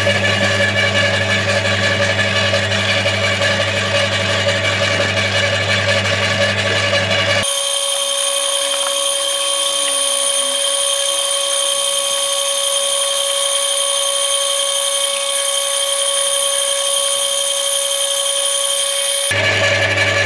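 McAllister 2800 W electric garden shredder running steadily with a strong whine while soft garden trimmings are fed through it. Near the end it is switched off and the sound dies away.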